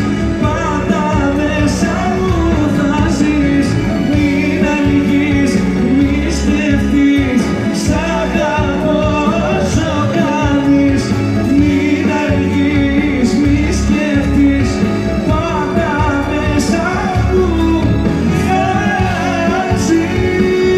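Male singer singing a Greek song live into a microphone over amplified band accompaniment with a steady beat.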